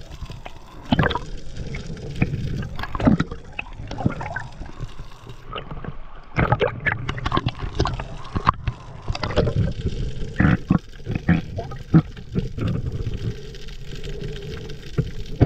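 Underwater sound of a freediver swimming: a steady low rush and gurgle of water with many irregular clicks and knocks scattered through it.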